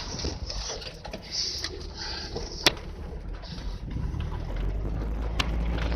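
Car engine heard from inside the cabin, running low and steady at low speed, with a couple of sharp clicks, one near the middle and one near the end.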